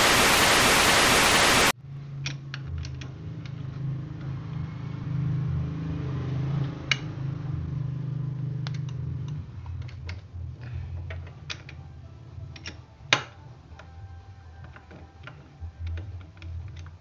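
A burst of loud static hiss for the first couple of seconds, then scattered metallic clicks and taps of a socket wrench working on a motorcycle engine's kick-starter side cover, with two sharper clinks.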